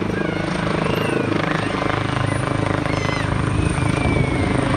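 Helicopter flying low overhead, its rotor blades making a steady rapid chop that grows louder after about two seconds.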